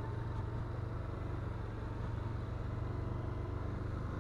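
Can-Am Outlander ATV's V-twin engine running steadily on the trail, a constant low engine hum with no change in speed.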